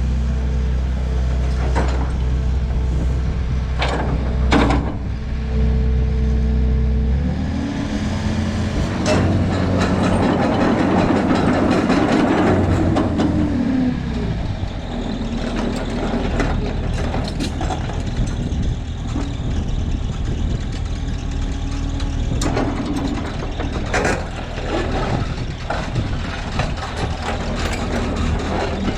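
Hitachi ZX280LC-3 tracked excavator's diesel engine running steadily, then from about seven seconds in rising and falling under hydraulic load as the machine works, with a few sharp knocks along the way.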